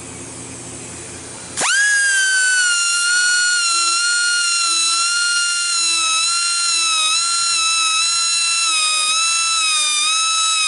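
Handheld high-speed rotary tool starting up about a second and a half in, with a sudden whine that rises quickly to speed and then runs as a steady high-pitched whine. The pitch wavers slightly as the cutter is run across the teeth of a sawmill band blade to sharpen them.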